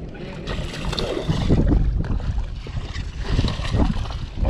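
Water splashing as a hooked smallmouth bass thrashes at the surface beside the boat and is scooped into a landing net near the end, with wind rushing over the microphone.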